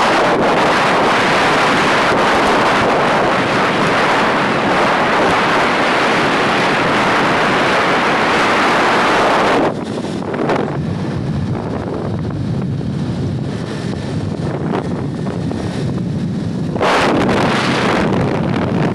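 Wind buffeting the microphone of a moving motorcycle, a loud, even rush. It drops to a lower, deeper rumble about halfway through and grows loud again near the end.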